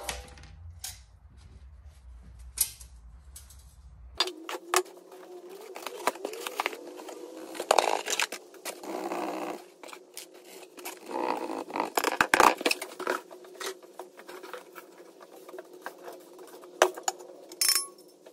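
Irregular clicks, knocks and scrapes of hard objects being handled, over a low rumble that stops about four seconds in and is replaced by a steady hum.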